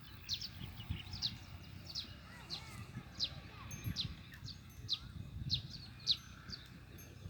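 Small birds chirping: short, high, falling chirps repeating several times a second, over a low, irregular rumble.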